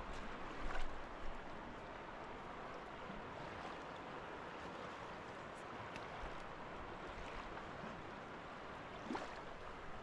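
River water rushing, a steady noise, with a few short knocks about a second in and again near the end.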